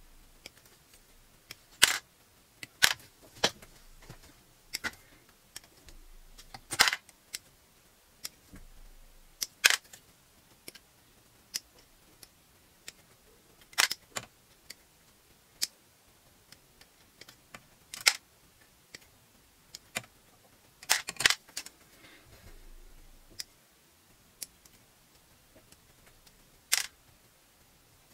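Hand nippers snipping parts off a Gunpla plastic kit runner: sharp, separate clicks, irregular and one to a few seconds apart, with a quick run of snips about three quarters of the way through.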